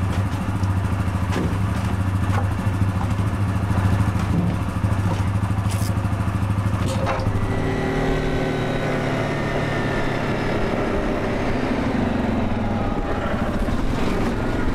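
Off-road vehicle engine idling steadily, then from about seven seconds in driving across a field, its pitch rising and falling.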